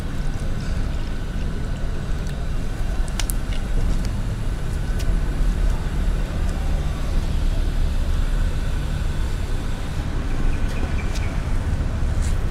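Steady low rumble of outdoor background noise, with a faint steady high hum and a few small clicks.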